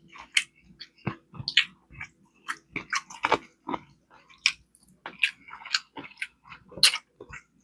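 Close-miked chewing of rib tips: wet mouth smacks and clicks, a few a second and irregular.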